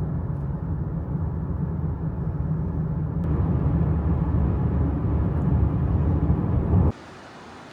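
Steady low rumble of a car driving, road and engine noise, cut off suddenly near the end.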